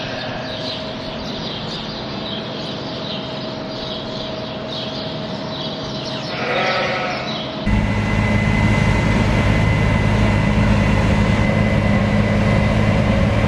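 A flock of ewes and lambs bleating in a barn. About eight seconds in, this gives way suddenly to a louder, steady engine drone from farm machinery.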